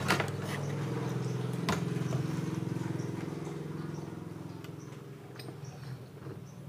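A CRT television's circuit board being handled and lifted out of the chassis, with two sharp knocks, one at the start and one under two seconds in. Under it a low hum slowly fades away.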